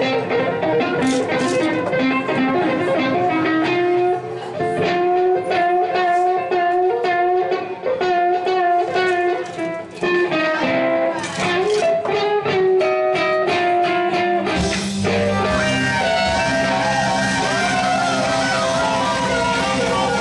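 Guitar music with picked electric guitar lines; a fuller band with bass comes in about fifteen seconds in.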